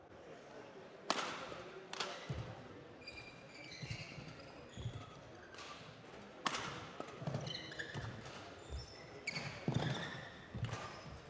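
Badminton rally in a large sports hall: sharp cracks of rackets striking the shuttlecock, each ringing in the hall's echo, between high, short squeaks of court shoes and thuds of footwork on the court floor.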